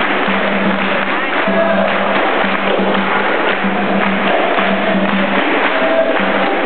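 Capoeira roda music: berimbau and pandeiro playing a steady repeating rhythm, with a group singing along.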